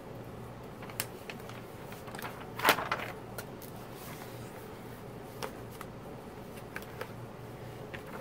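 A rolled diamond-painting canvas under its plastic film being handled and unrolled: light crinkles and clicks, with one louder crinkle about two and a half seconds in, over a steady low hum.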